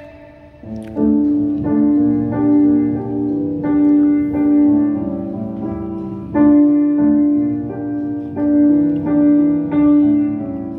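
A recorded song playing through a Pioneer SA-1000 stereo amplifier: a slow keyboard passage of held notes in a repeating chord pattern, with no singing, starting about a second in.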